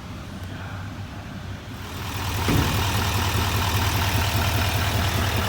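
Duramax L5P 6.6-litre V8 turbodiesel idling with a steady low hum. About two seconds in it gets louder, with a rushing noise and a click, and stays loud.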